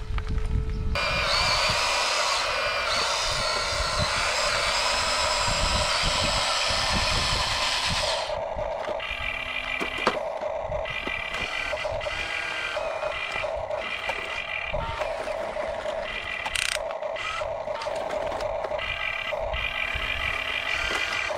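Small electric motors of radio-controlled construction models whining, the pitch wavering under load. About eight seconds in, the sound changes to a pulsing tone that repeats on and off about once a second.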